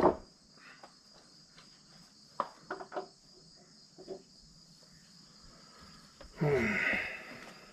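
A sharp click, then scattered light clicks and taps from handling the welder's plastic cooling fan as it is fitted onto the engine crankshaft, over a steady faint high-pitched background. A short, louder sound falling in pitch comes about six and a half seconds in.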